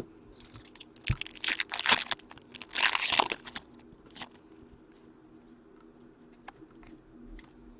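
Trading-card pack wrapper being torn open and crinkled, in a cluster of rustling, ripping bursts over about three seconds, then a last crinkle and a few faint handling clicks.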